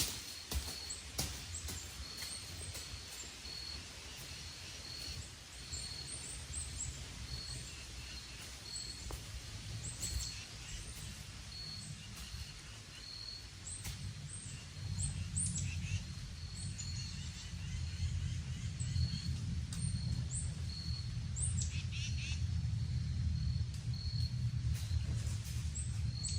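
Woodland birds chirping with short, sharp calls, over a high note repeated at an even pace. A low rumble comes up about halfway through.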